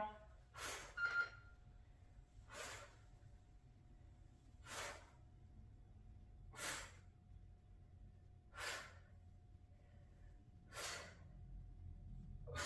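A woman's sharp breaths out, six in all at about one every two seconds, the exertion breathing of bent-over kettlebell rows.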